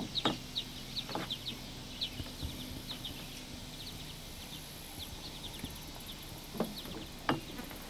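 Small birds chirping in short, repeated high notes across the lake, with a few sharp clicks near the start and near the end.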